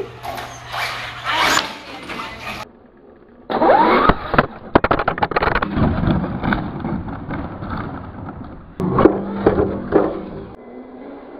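Radio-controlled truck on a concrete floor: its electric motor whines up in pitch, then a rapid clatter of knocks as the truck tumbles and crashes. Near the end, another short bout of motor whine with knocks and scraping.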